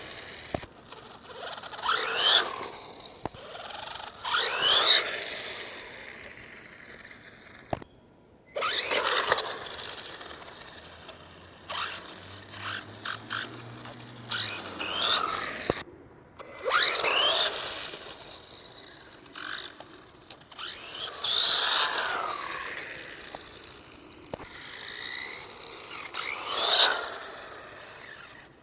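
WLtoys 12428 RC truck's electric motor and gears whining in short full-throttle bursts, about eight in all, the pitch rising and falling with each burst.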